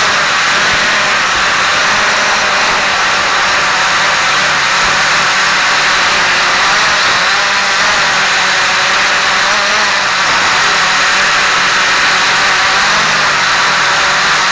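Quanum Follow Me quadcopter's electric motors and propellers running in flight: a loud, steady whir whose pitch wavers slightly as the motor speeds change.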